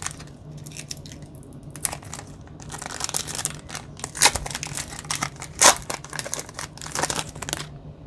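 Foil trading-card booster pack crinkling and being torn open by hand, in irregular crackling bursts.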